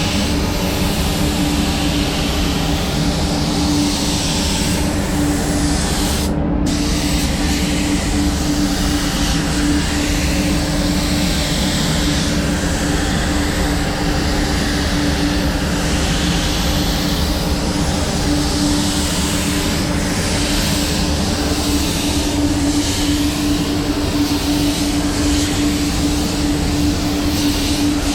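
Spray booth ventilation fans running: a steady airy whir with a constant hum.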